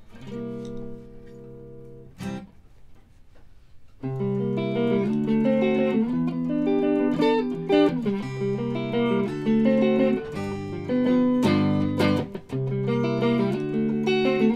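Acoustic guitar and electric guitar playing a song's opening bars. A chord rings out at the start and is held for about two seconds, then a short strum follows. About four seconds in, the guitars come in fully and play picked notes and chords together, louder.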